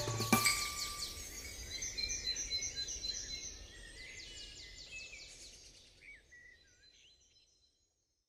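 Birds chirping and trilling in short repeated series, growing fainter and fading out about seven seconds in. The last notes of the background music stop right at the start.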